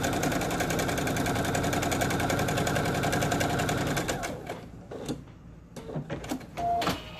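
Electric sewing machine stitching fast and steadily as quilt pieces are chain-pieced through it. It stops about four seconds in, followed by a few light clicks from handling at the machine.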